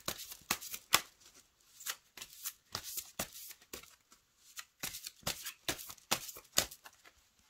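A deck of oracle cards shuffled by hand, overhand style: a run of quick, irregular card snaps and slides, with two short pauses.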